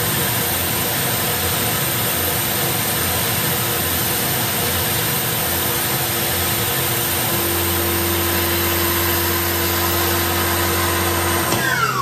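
CNC milling machine cutting aluminium with a ball end mill under a hissing mist-coolant air blast. A steady hum joins about seven seconds in, and near the end a falling whine is heard as the spindle lifts clear of the part.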